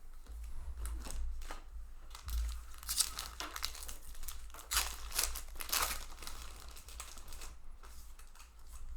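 Foil wrapper of a Magic: The Gathering Ravnica Allegiance booster pack crinkling and tearing as it is opened, a string of rustles that is busiest in the middle.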